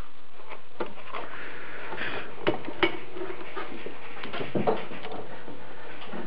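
Hand-handling of a braided rubber hose with aluminium AN fittings as it is moved and pulled out of a car's engine bay: rustling and a few light metallic clicks and knocks over a steady background hiss.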